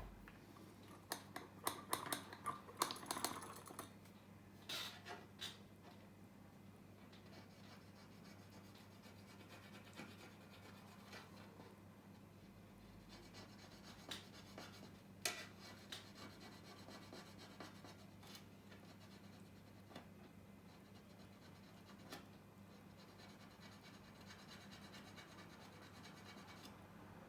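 Small hand tools scratching and clicking against a phone's metal housing: a quick cluster of scrapes in the first few seconds, then a few isolated clicks, over a faint steady low hum.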